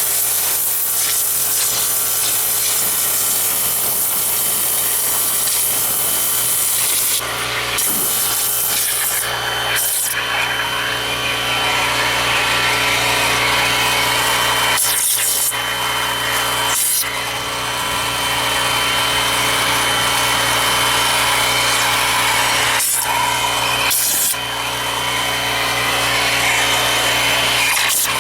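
Pressure washer spraying, blasting weed and crud off a boat's outdrive planing fin: a loud, steady hiss of the spray over the hum of the washer's pump, dipping briefly several times.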